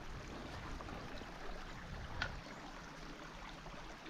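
Spring water rushing and bubbling out of a mountainside, a steady flowing sound, with a single small click about two seconds in.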